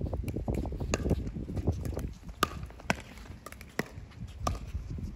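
Pickleball paddles striking a hard plastic ball in a rally: sharp, ringing pops roughly every half second to second, mixed with the ball bouncing on the court and shoe scuffs. Wind rumbles on the microphone during the first two seconds.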